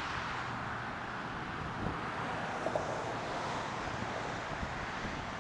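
Steady hiss of road traffic, with wind buffeting the microphone.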